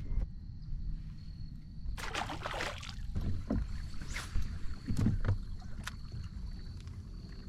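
A kayak moving on the water: low steady rumble with several short swishes and splashes of water against the hull.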